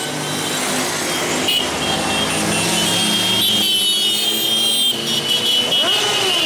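Motor vehicle engines running steadily, with one engine revving up and dropping back near the end.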